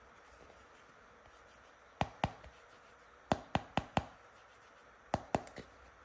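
Sharp clicks of hard plastic toy pieces being handled and tapped together: two, then four in quick succession, then two more.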